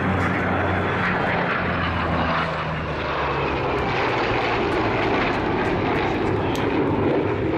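A formation of an F-22 Raptor, an F-86 Sabre, a P-38 Lightning and a P-51 Mustang flying past together: jet noise mixed with the drone of piston-engine propellers, held steady throughout.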